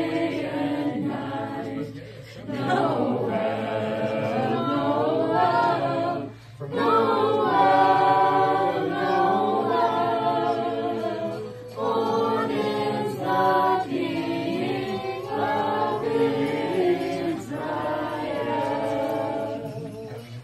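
A group of carolers singing a Christmas carol together, unaccompanied, with a few short breaks between phrases.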